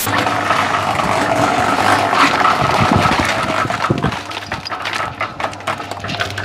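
Electric cement mixer running with a steady hum and whine as its tilted drum turns, while wet concrete slops out of the drum into a plastic bucket with irregular wet thuds and knocks, heaviest about three to four seconds in.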